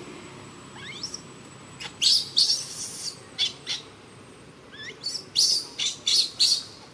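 Newborn baby macaque crying in distress: a rapid series of short, high-pitched squeals and screams, some rising and falling chirps and some harsh shrieks, about a dozen in all.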